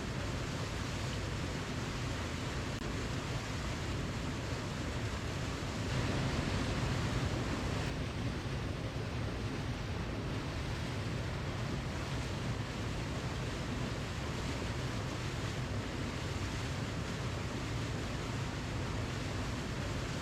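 Waterfall: a steady rush of falling water that swells slightly about six seconds in.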